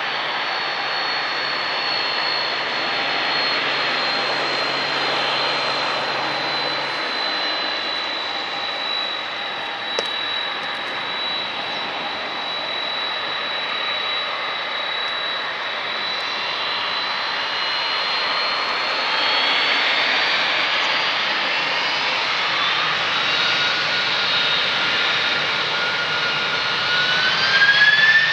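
Twin-engine jet airliner's engines whining at low power as it taxis, a steady high whine over a rushing noise. Over the last third the whine climbs in pitch and, near the end, grows louder as the engines spool up.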